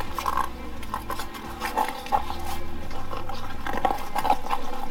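Rubber handling noise as a partly inflated 20-inch bicycle inner tube is pushed and rubbed into a gum-wall tire by hand: irregular scuffs and rubs.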